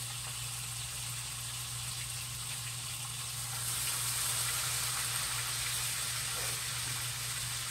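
Beef roast sizzling as it sears in butter in a hot pan, a steady frying hiss that gets a little louder about halfway through as the roast is turned over with forks.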